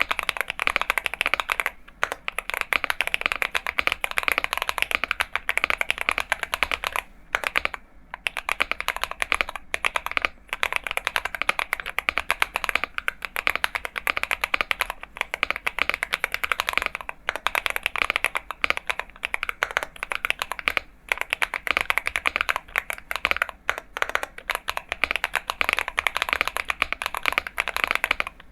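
Fast continuous typing on an Akko MonsGeek M1 mechanical keyboard with Akko V3 Cream Yellow Pro linear switches: a dense stream of key clacks, broken by a few short pauses.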